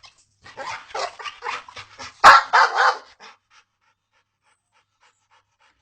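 American pit bull terrier panting in quick, rapid breaths, with one loud sharp sound about two seconds in; the panting stops about three seconds in.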